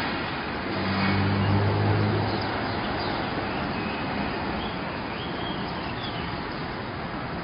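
Steady outdoor background noise, with a low engine-like hum about a second in and a few faint high chirps in the middle.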